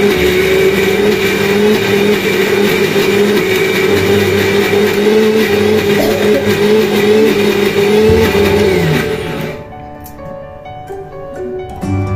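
Electric kitchen mixer grinder running loudly, grinding fresh green peas into a paste, with a steady motor whine; about nine seconds in it is switched off and the motor winds down. Background music plays under it and carries on after.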